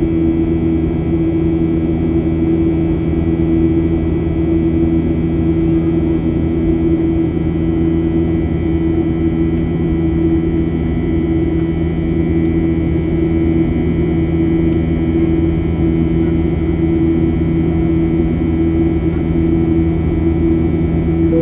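Cabin noise inside a Boeing 737-800 from its CFM56-7B engines: a loud, steady drone with a strong low hum that wavers slightly in strength and a thin steady whine above it.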